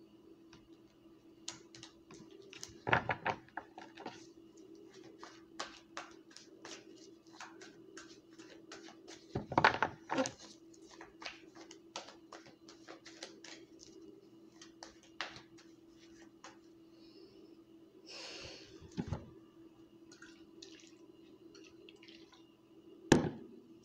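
Tarot cards being shuffled by hand: a long run of quick soft flicks and riffles, with a few louder thumps, about three seconds in, around ten seconds, near nineteen seconds and near the end. A steady low hum runs underneath.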